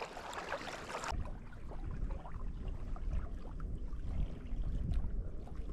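Wind buffeting the microphone, a steady low rumble, with faint water sounds. A brief hiss at the start cuts off suddenly about a second in.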